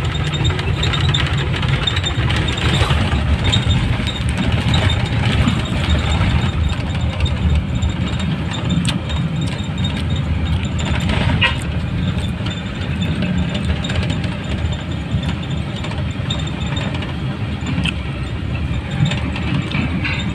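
Steady engine and road noise heard inside a moving bus's cabin, with a deep drone and a few faint clicks or rattles.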